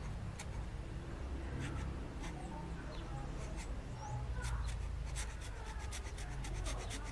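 Hacksaw blade scraped across a small piece of plywood, scoring shallow scratches to key the surface for glue: a few scattered strokes, then a quick run of about seven strokes a second from about five seconds in.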